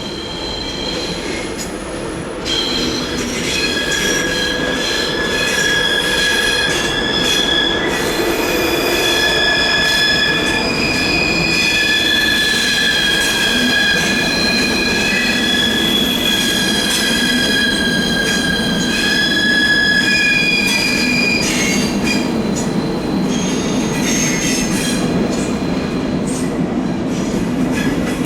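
A train's wheel flanges squealing against the rails in a tight curve: several high, sustained shrieking tones that shift and overlap, over the low rumble of the wheels on the track. The squeal rises in loudness about two and a half seconds in and holds.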